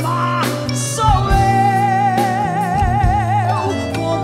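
Live band music: a woman's voice holds one long note with wide vibrato for about two and a half seconds over bass, drums and keyboard.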